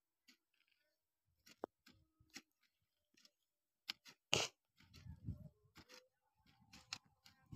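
Hand hoes chopping and scraping into soil between potato plants: scattered faint scrapes and soft knocks, with one louder scrape a little past halfway through.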